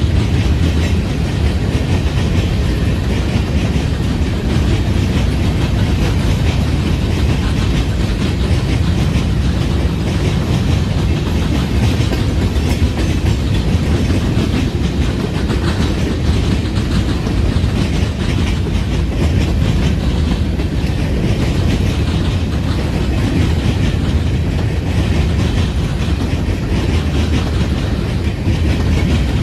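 Freight train cars rolling past close by (covered hoppers, a boxcar and tank cars), a steady low noise of steel wheels on the rails, even throughout.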